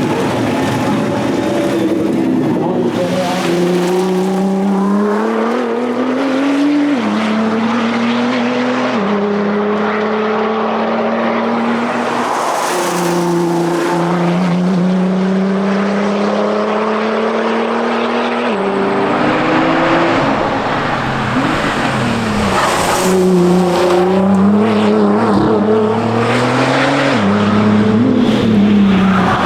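Nissan R35 GT-R's twin-turbo V6 engine under hard acceleration, its pitch climbing with the revs and dropping at each upshift, about seven and eighteen seconds in. After that the throttle comes on and off before the revs climb again near the end.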